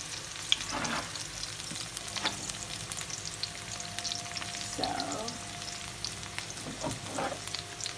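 Chopped onions sizzling as they fry in oil in a pan, stirred with a wooden spoon that knocks and scrapes now and then.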